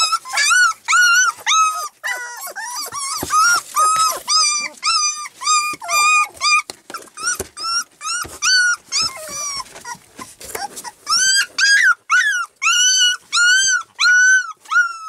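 Young puppies whining and crying: high, arching whimpers repeated about two a second without a break.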